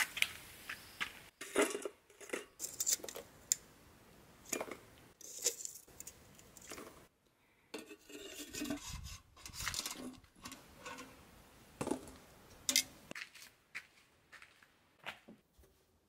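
Metal tongs clinking and scraping as lumps of charcoal are picked out of a clay shichirin grill and dropped into a tin charcoal-extinguishing can: a run of irregular sharp clicks and clatters.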